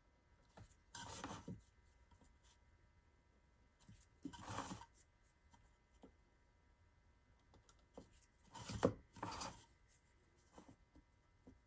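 A pen drawing marking lines on blue painter's tape wrapped around a subwoofer voice coil former, in four short scratchy strokes, the last two close together.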